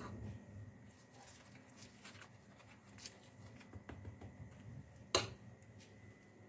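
Faint scraping and light tapping of a metal spoon spreading ghee over rotis on a plate, with one sharp tap about five seconds in.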